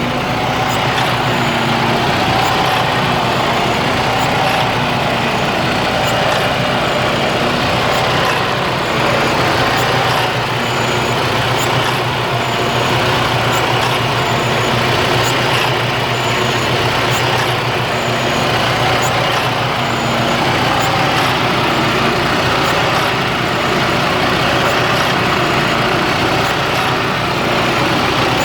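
Detroit DD15 inline-six diesel in a Freightliner Cascadia idling roughly, its pitch wavering up and down every couple of seconds, with a faint regular ticking. The owner takes this for a rough idle; his shop calls it normal.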